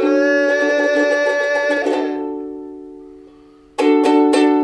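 Music: strummed chords on an acoustic plucked-string instrument. A chord struck at the start rings out and fades over about three seconds, then a quick run of three or four strums comes near the end.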